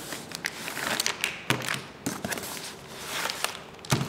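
Cardboard box and packing being handled: irregular rustling and crinkling with a scatter of sharp knocks and scrapes.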